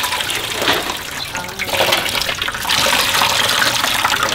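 Coconut milk running and splashing into a plastic basin as grated coconut chaff is wrung out by hand in a washcloth; the flow gets louder about two seconds in.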